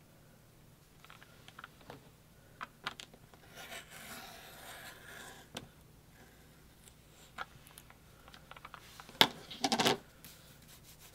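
Blade of a Creative Memories Custom Cutting System circle cutter scraping around a plastic circle template as it cuts paper on a cutting mat: light clicks, then a scratchy scrape about four seconds in. Near the end come a few louder clacks and a rattle as the plastic template is lifted off and set down.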